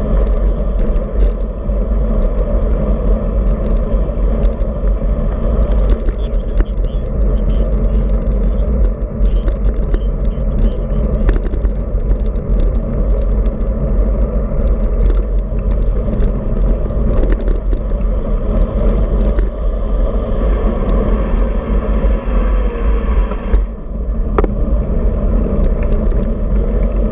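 Steady rushing and rumbling of wind buffeting a road bike's handlebar-mounted camera microphone, with tyre and road rumble, while riding. Frequent small clicks and rattles from the bike and mount over bumps in the pavement.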